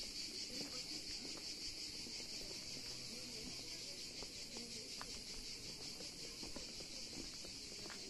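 A steady, high-pitched insect chorus, with faint small ticks and rustles beneath it.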